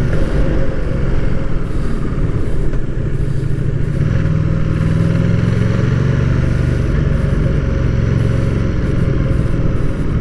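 Ducati Diavel motorcycle engine and stock muffler running steadily while riding, a loud, even low hum with no revving. The rider hears a hum from inside, like being in a cave, and cannot tell what it is.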